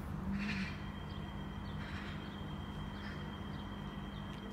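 Class 318 electric multiple unit pulling away from the platform: a steady low electrical hum, joined about a second in by a thin, steady high whine.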